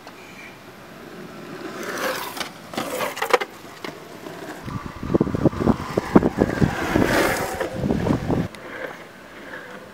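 Longboard wheels (These Wheels 80a, 74.5 mm urethane) rolling on asphalt: a gritty rumble with scattered clicks that swells about halfway through as the board passes close, then fades near the end.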